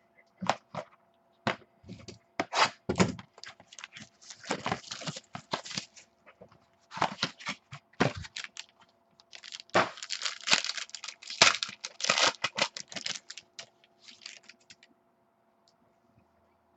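Packaging on a sports card box being torn open and crinkled, in quick irregular bursts of crackling that stop before the end.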